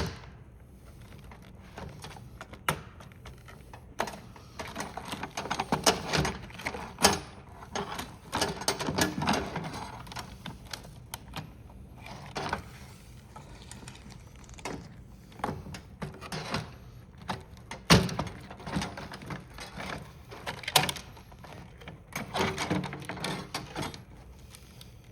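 Plastic calculator casing and parts being handled and pulled apart: irregular clicks, knocks and rustles, with one sharper knock about two-thirds of the way through.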